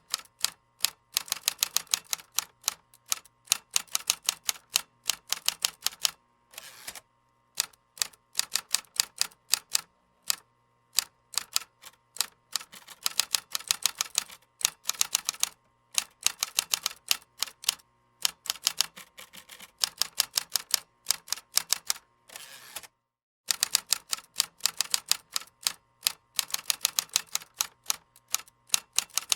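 Typing on a computer keyboard: fast runs of key clicks, broken by a few brief pauses.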